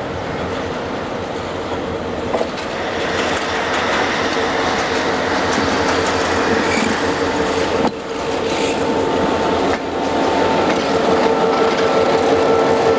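A CN diesel road-switcher locomotive and its slug (booster unit) rolling slowly past close by: the diesel engine runs with a steady whine and the wheels roll over the rails, growing louder as the units come alongside.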